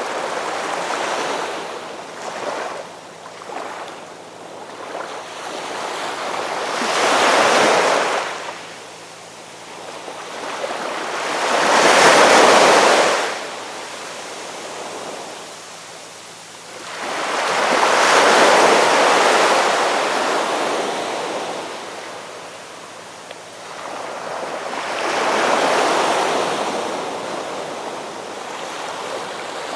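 Ocean waves surging in and washing back, four swells about six seconds apart with quieter wash between them; the swell about twelve seconds in is the loudest.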